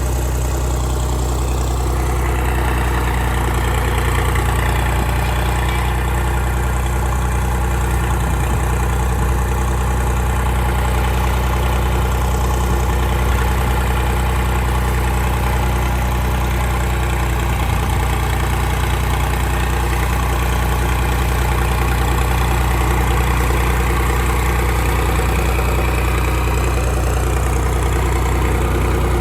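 An engine idling steadily: an even, unchanging low drone.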